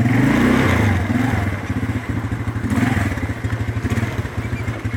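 ATV engine running as the quad pulls away, its pitch rising and falling with the throttle.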